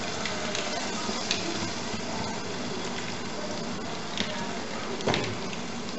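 Steady sizzling hiss of ground beef cooking in a pot over a gas burner, with small scattered clicks and one louder thump about five seconds in.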